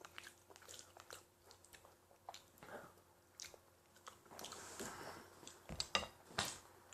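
A person chewing a mouthful of meat, with faint, irregular wet smacks and small clicks and a few louder clicks near the end.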